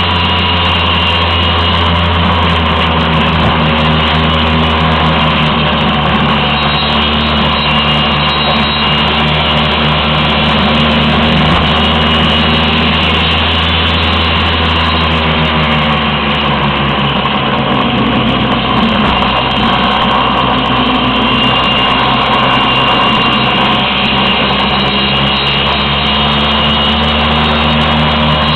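Vespa scooter engine running steadily under load on a mountain climb, its note dropping a little about two-thirds of the way in.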